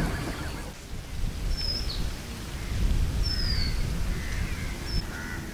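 Birds calling: a few high whistled notes that slide downward, spaced a couple of seconds apart, with some lower calls near the end, over a low rumble of wind on the microphone.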